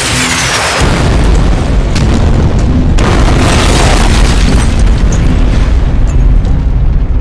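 A rocket-propelled grenade's falling whoosh, then a heavy explosion just under a second in and a second blast about three seconds in, followed by a long rumble. Dramatic score music plays underneath.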